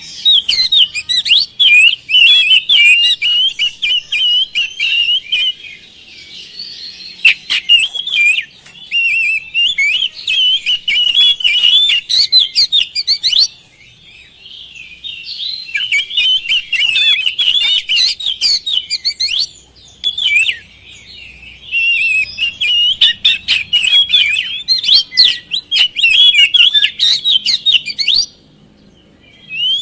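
Oriental magpie-robin (kacer) singing loudly in long runs of rapid, varied whistled phrases, breaking off briefly about six, fourteen and twenty seconds in.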